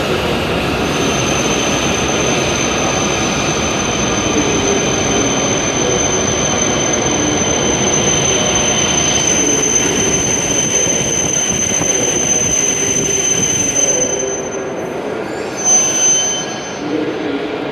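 E7 series Shinkansen train arriving at the platform, with rumbling running noise and a steady high-pitched squeal as it brakes. The noise drops off about 14 seconds in as the train comes to a stop, followed by a brief louder sound.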